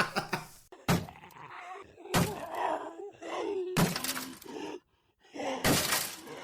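Four sudden crashes of something breaking, about a second and a half apart, with voice sounds between them.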